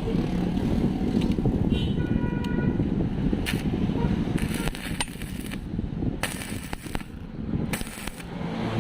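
Stick welding on galvanized pipe: the arc crackling and sizzling in short bursts through the second half, over a steady low rumble.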